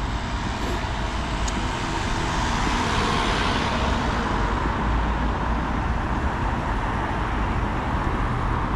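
Road traffic noise, with a vehicle passing that swells and fades about three seconds in.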